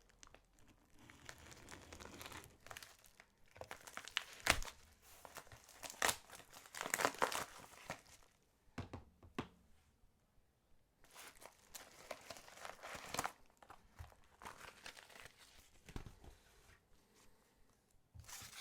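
A shipping package being torn open by hand, its wrapping crinkling and tearing in uneven bursts, with a sharp knock about four and a half seconds in.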